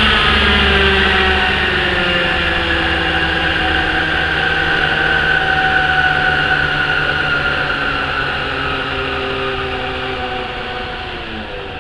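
Thunder Tiger Raptor 50 model helicopter's two-stroke glow (nitro) engine running with a rear-mounted exhaust. Its pitch and loudness slowly fall, as when it is throttled back.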